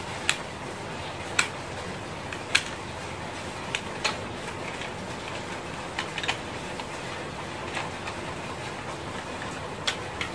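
Irregular sharp clicks and taps, about eight, scattered over a steady hiss, as small parts and a tool are handled while a socket is wired.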